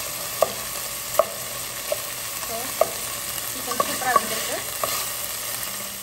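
Chicken tenderloin pieces sizzling steadily in oil over a high flame, while a wooden spoon stirs them and knocks against the coated pot about seven times.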